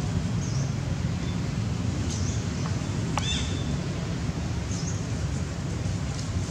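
A small bird chirping: a few short, high chirps a second or two apart over a steady low rumble, with one sharp click about three seconds in.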